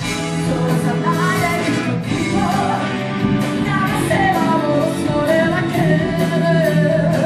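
A live band playing a Japanese pop song, with a lead singer's voice over drums, bass and electric guitars.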